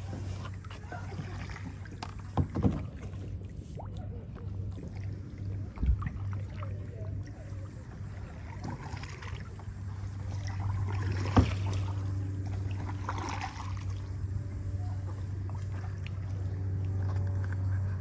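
Kayak paddle strokes swishing and dipping in the water, with a few sharp knocks, over a steady low hum.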